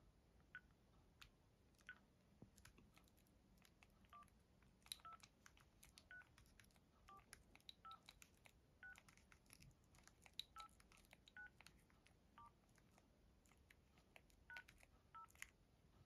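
Faint short keypad beeps and button clicks from a Philips 162 (CT1628) mobile phone as its keys are pressed in an irregular run, the beeps at a few different pitches.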